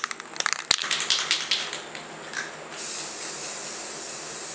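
Aerosol spray-paint can being shaken, its mixing ball rattling rapidly, then about three seconds in a steady hiss as it starts spraying light gray paint.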